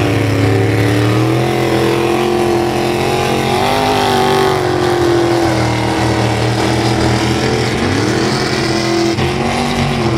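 Mud-racing truck engines running hard at high revs, the pitch dipping and climbing again twice.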